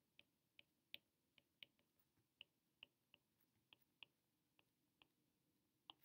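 Faint, irregular ticks of a stylus tip tapping on a tablet's glass screen while handwriting, about two a second.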